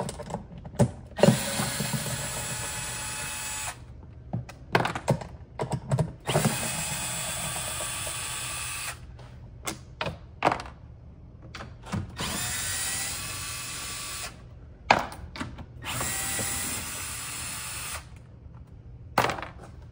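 Cordless electric driver with a 10 mm socket spinning out bolts. It runs four times for about two seconds each, with clicks and clatter of handling in between.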